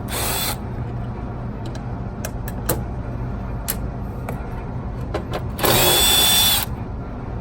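Cordless drill-driver running in two short bursts, about half a second at the start and about a second near the end, the second with a steady whine; scattered clicks and a constant low hum lie underneath.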